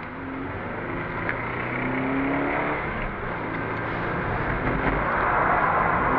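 Toyota GT86's flat-four engine heard from inside the cabin while the car slides on a wet track, its revs rising and falling. A hiss of tyres on the wet asphalt grows louder toward the end.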